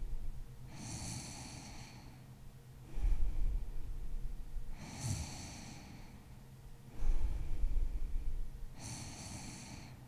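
A woman snoring in her sleep. A low snore alternates with a breathy, faintly whistling breath, and the pair repeats steadily about every four seconds.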